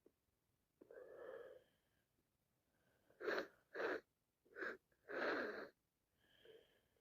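A woman with sinusitis sneezing: a long wheezy breath in, then four sharp sneezes in quick succession, the last the longest, and a softer breath after.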